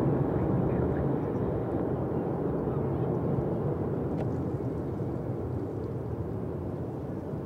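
Jet noise from the Red Arrows' formation of BAE Hawk jets, a steady rumble that slowly fades as the formation flies away.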